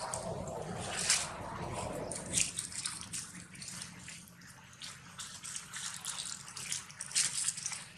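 Irregular wet smacking and clicking sounds of an infant long-tailed macaque suckling at its mother's nipple, busiest in the first couple of seconds.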